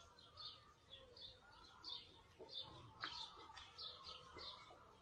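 Faint chirping of birds: a run of short high chirps, about two or three a second, with a faint click about three seconds in.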